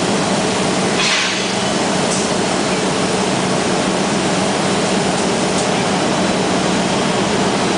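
Steady industrial noise of glassworks equipment and burners with a low hum, and a short hiss about a second in.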